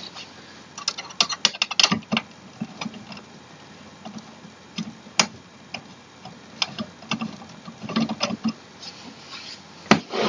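Irregular light clicks and small knocks of metal chair hardware being handled and fitted during office-chair assembly, a cluster in the first couple of seconds, then scattered taps.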